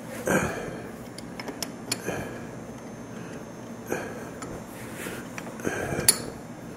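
Scattered metal clinks and taps as a chuck key is fitted into the camlock cams of a lathe spindle nose and turned to lock a 5C collet chuck in place, with a sharper clink about six seconds in.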